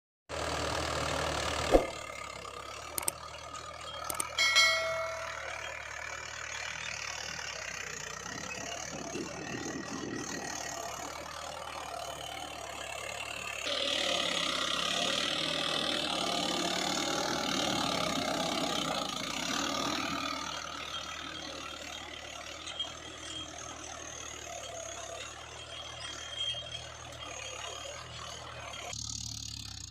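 Mahindra 575 DI tractor's diesel engine running steadily. There is a sharp knock about two seconds in and a short metallic ring a few seconds later. The sound grows louder for several seconds about halfway through.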